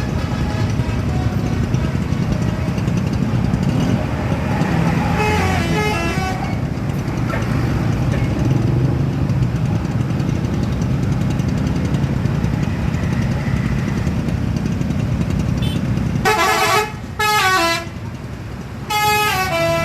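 Tour bus's multi-tone 'telolet' horn playing short tunes of notes that step down in pitch: once fainter about five seconds in, then two loud bursts near the end. Under it the bus's engine and road noise rumble steadily.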